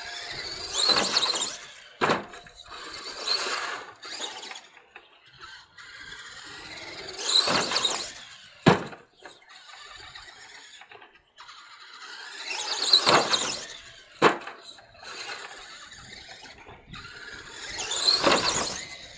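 RC truck driving in short bursts, each with a high, squealing whine that rises and falls in pitch, repeated every five or six seconds; three of the bursts are followed about a second later by a sharp knock.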